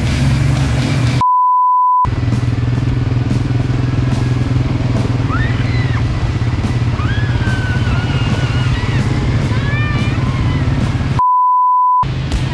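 ATV (quad bike) engines running steadily as the quads drive through mud. Twice, about a second in and near the end, the sound is replaced by a flat high-pitched beep lasting just under a second.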